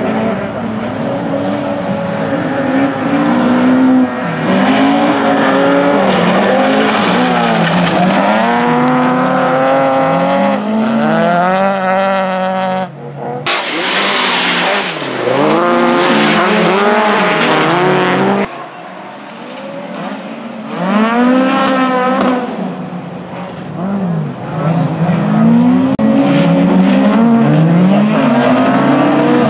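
Rallycross cars racing: engines revving hard, their pitch climbing and dropping over and over through gear changes and lifts. The sound breaks off and changes abruptly twice, about halfway through.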